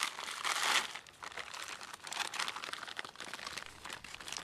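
Printed plastic pouch crinkling as it is handled and opened, in several bursts, the loudest in the first second.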